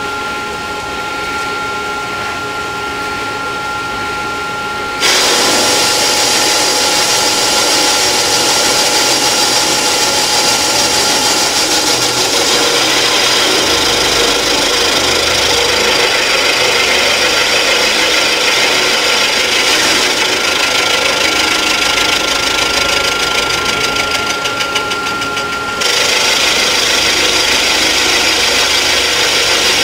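Rottler F90Y CNC machining center end-milling an engine block's deck around a water hole. At first a steady whine runs over the spindle's hum. About five seconds in, the cutter bites into the metal and a loud, harsh cutting noise sets in and carries on. A few seconds before the end the sound changes, losing its hiss, while the cut goes on.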